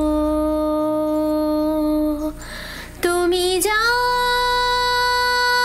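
A woman singing long, drawn-out held notes in Bengali, the words 'jago' ('awake') and 'tumi' ('you'); the first note holds for about two seconds, breaks off, and a higher note starts about three seconds in and holds.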